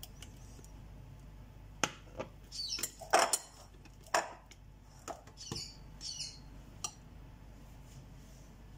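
Light clicks and knocks of a hand mixer and its beaters being handled against a glass bowl, mixed with several short high chirps or squeaks.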